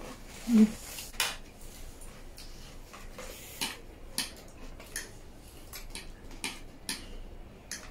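Metal forks and spoons clinking and scraping against stainless steel serving trays as food is scooped up, in irregular sharp clinks. A brief low voice sound comes about half a second in.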